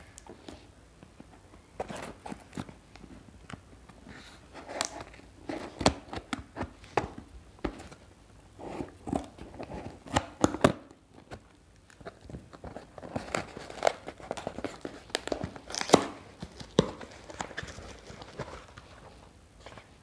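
Scissors cutting through the tape and cardboard of a shipping box, with irregular snips, rustling and crinkling of the packaging and a few sharper knocks as the box is handled.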